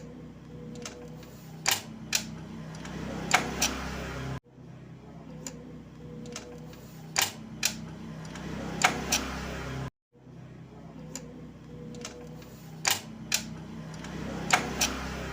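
Motorcycle gear shifting: sharp clicks and clunks of the gear lever and gearbox over a low, steady engine hum. The same few-second clip repeats three times, with a brief cut to silence between repeats.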